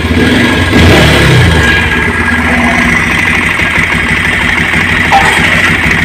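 Bajaj Pulsar 150's single-cylinder engine running just after starting. The revs rise briefly about a second in, then it settles into a steady idle. This is the sound after the timing chain tensioner adjustment, which the mechanic calls excellent now, with the chain rattle gone.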